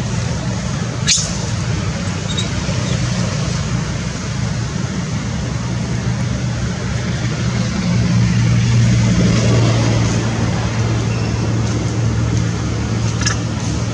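A motor vehicle engine running close by, a steady low drone that gets louder about eight seconds in, with one sharp click about a second in.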